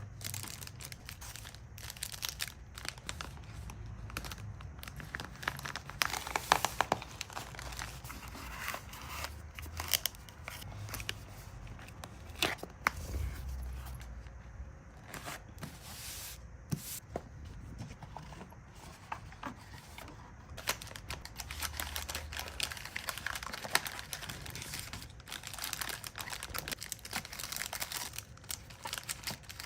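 Plastic packaging crinkling and tearing under the hands while an order is packed, with many small sharp clicks and taps between louder rustles.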